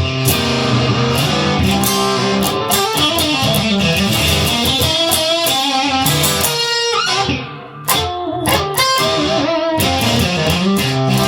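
Blues music with no singing: an electric guitar plays an instrumental break, dropping out briefly about seven and a half seconds in.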